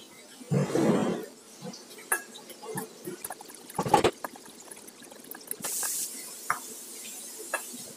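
Metal spoon clinking and scraping against a small stainless steel bowl while dry ground spices are stirred together. The louder moments come about a second in and again about four seconds in, with a brief scraping hiss near six seconds.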